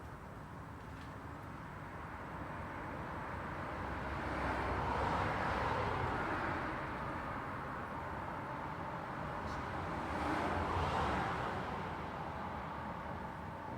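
Road traffic: a steady rush of tyre and engine noise, with two vehicles passing, one swelling and fading about five seconds in and another about ten seconds in.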